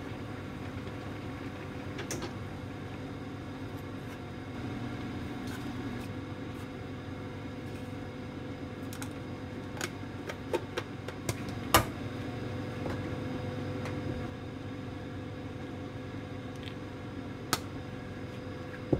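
Steady low hum of a running kitchen appliance, with a few sparse light clicks and taps.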